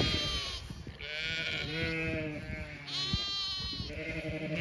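Sheep bleating, several calls in turn a second or so apart, some high-pitched and some deeper, as from ewes and lambs in a flock.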